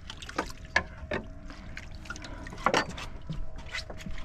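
Scattered clicks and knocks of fishing gear being handled aboard a boat, over a faint steady hum.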